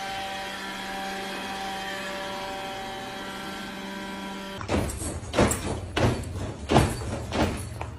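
Robot vacuum cleaner running with a steady motor hum. About four and a half seconds in it cuts off and a series of about five loud thumps follows.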